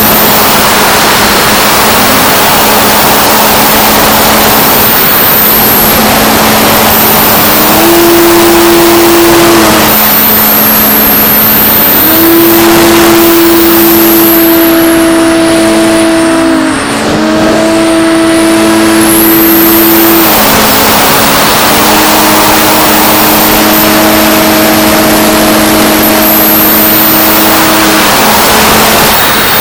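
Mako flying wing's electric motor and propeller heard from the onboard camera, under heavy wind rush over the airframe. A steady hum runs under a second tone that steps up and down in pitch several times as the throttle changes, dipping briefly about two-thirds of the way through.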